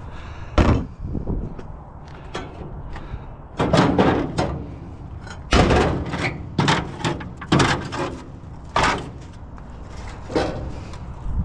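A series of irregular knocks and clunks, some in quick clusters, as a heavy piece of scrap is handled and shifted about.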